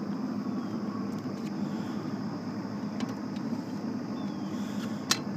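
Boat motor running with a steady hum. There is a sharp knock about five seconds in.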